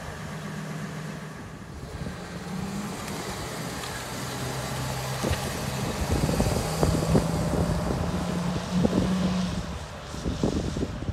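2003 Ford F350's 6.8-litre gasoline V10 engine pulling the truck away and driving past, its note climbing and dropping back a few times as it accelerates, then fading as it goes off down the road.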